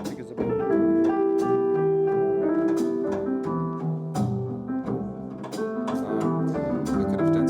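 Jazz recording of piano and double bass in a passage without singing, played back over TAD Compact Evolution One TX loudspeakers.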